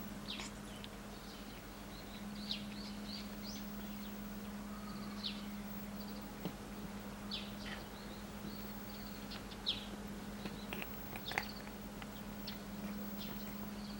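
Small birds chirping now and then, short high chirps scattered throughout, over a steady low hum, with a couple of soft clicks a little after the middle.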